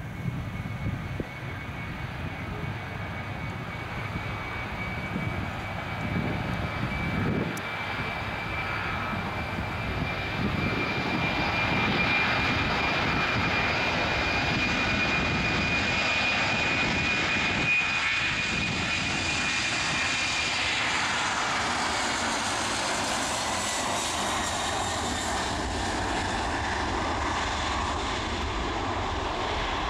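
Boeing 747-400 freighter's four jet engines running as the aircraft rolls down the runway and passes by. The sound grows louder over the first dozen seconds, carrying a steady high whine that fades about two-thirds of the way through as a broader hiss takes over.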